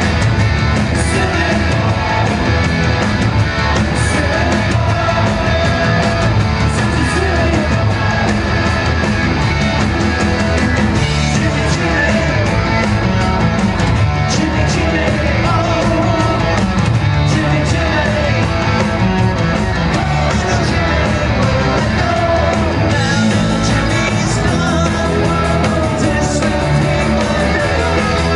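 Punk rock band playing live: electric guitars, bass and drums with a lead singer, loud and unbroken, heard from within the audience.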